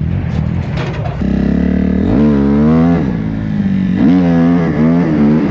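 Dirt bike engine running and being blipped, its pitch rising and falling back twice.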